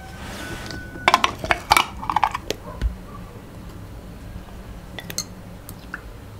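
Metal seaming lid being prised off a large glass pickle jar with a hand opener: a quick cluster of sharp metallic clicks and clinks about a second in. Near the end a fork clinks faintly against the glass jar and a plate as pickles are lifted out.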